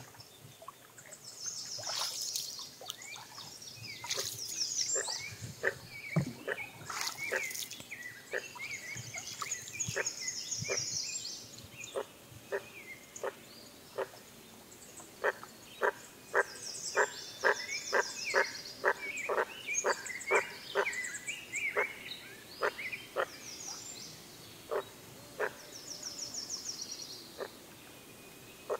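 Frogs calling, short knocking croaks, scattered at first and then in a quick run of about three a second in the second half, while songbirds trill high above them.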